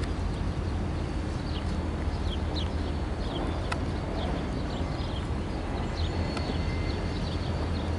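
CSX GP40-3 diesel locomotive rolling slowly around a curve: a steady low engine rumble with irregular clicks and clacks from its wheels on the track.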